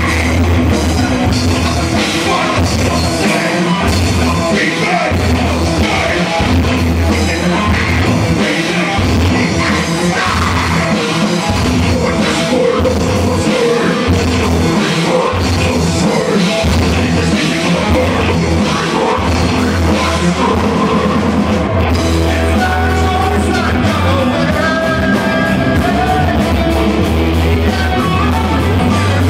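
A live rock band playing loud: electric guitars and a drum kit, with a singer's voice over them.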